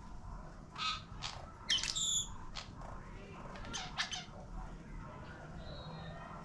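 Violet-crowned hummingbird calling: a scattered series of short, high, squeaky chip notes, the loudest about two seconds in and a few more about four seconds in.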